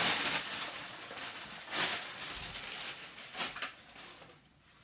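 Packaging rustling and crinkling as a part is pulled out of its box, with sharper crackles about two seconds in and again about a second later, then dying down near the end.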